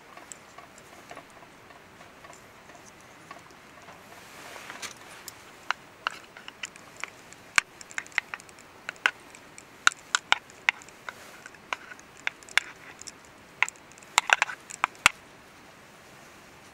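Irregular sharp clicks and knocks of small hard objects, roughly two dozen spread over about ten seconds, starting about four seconds in, with brief rustling around the first clicks and a quick cluster of them near the end.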